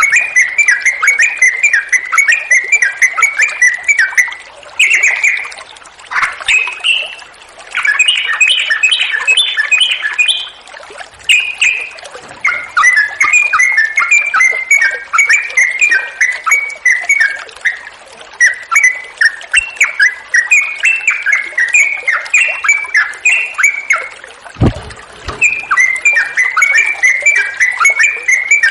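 Yellow-vented bulbul singing bright, rapid chattering phrases almost without pause, over a faint background of flowing water.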